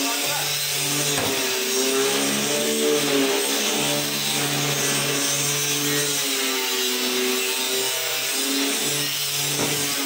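Background music: a song with long, wavering held notes over a low sustained note that changes about every second.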